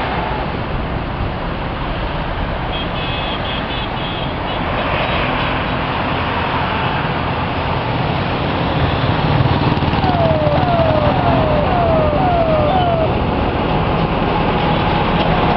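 Steady noise of mixed highway traffic passing below: cars, trucks and motorbikes. It grows a little louder about halfway through, and about two-thirds of the way in comes a quick run of five short falling whistles.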